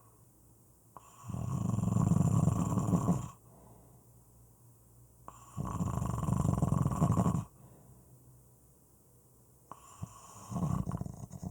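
A person snoring: three rattling snores, each about two seconds long and about four seconds apart, the third starting near the end, with quiet breathing between them.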